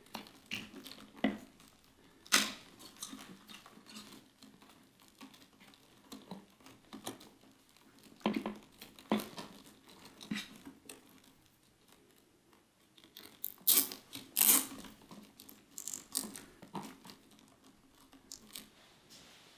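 Motorcycle wiring and plastic cable ties being handled and stuffed in behind the front fairing frame: irregular rustles and sharp plastic clicks, with a cluster of louder clicks about two-thirds of the way through.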